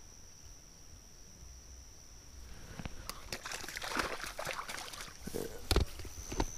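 A steady high insect trill over the night air, then from about two and a half seconds in, close rustling and clicking of handling near the microphone, with a sharp knock near the end.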